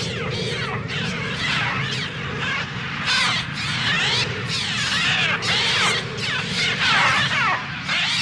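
Electronic bird-attack effects from a Mixtur-Trautonium: a dense swarm of overlapping bird cries, each gliding up or down in pitch, over a steady low drone.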